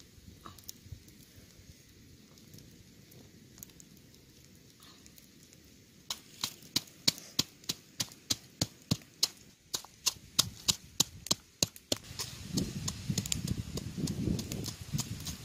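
A wooden pestle pounding chilies and garlic in a coconut-shell mortar: after a quiet start, sharp knocks about three a second begin about six seconds in, turning into duller, heavier thuds near the end.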